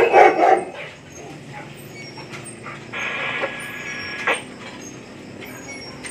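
A dog barking, loudest in a quick cluster of barks in the first second, with a few single short sounds later on.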